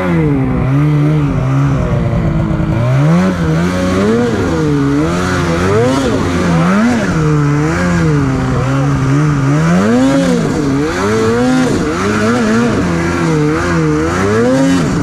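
Snowmobile engine revving up and down over and over as the throttle is worked, its pitch rising and falling every second or two.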